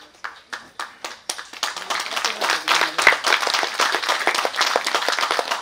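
Audience applause: a few separate claps at first, swelling about a second and a half in into dense, sustained clapping from many hands.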